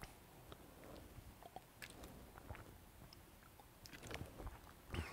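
A man drinking from a plastic water bottle: faint sips and swallows with small crinkles and clicks of the bottle, and a slightly louder knock near the end.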